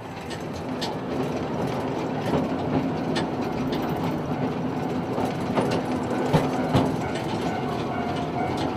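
A steam locomotive with its carriages running past, a steady mix of steam and running gear noise with a low hum, swelling over the first two seconds, and several sharp knocks of the wheels over the track.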